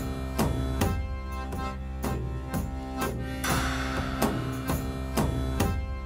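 Instrumental background music with a steady beat: regular drum strikes, about two to three a second, over sustained pitched notes.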